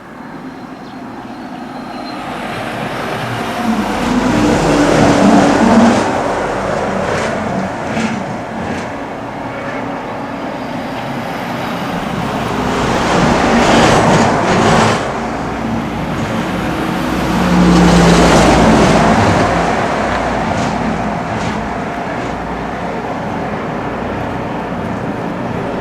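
Road traffic on a rural highway: vehicles pass close by one after another, each swelling up and fading away, loudest about six seconds in and again around fourteen and eighteen seconds, with engine hum under the tyre noise.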